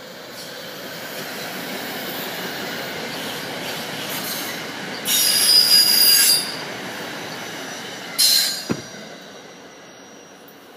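SEPTA Silver Liner IV electric multiple-unit train rolling past on the rails and pulling away. A loud, high-pitched squeal of wheels against rail lasts about a second and a half around the middle, and a shorter one comes about eight seconds in.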